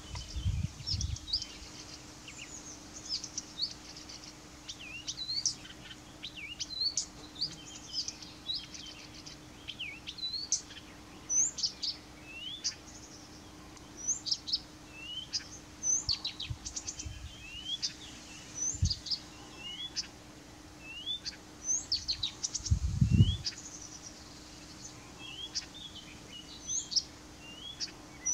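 Blyth's reed warbler singing: a long, unbroken run of short, varied notes, some repeated several times. A few low rumbles break in, the loudest about 23 seconds in.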